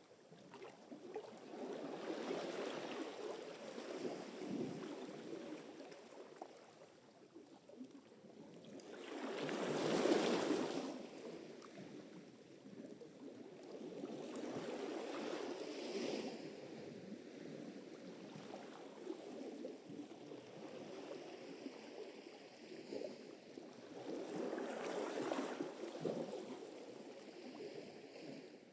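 Sea surf: waves breaking and washing up one after another in slow swells, the loudest about a third of the way in.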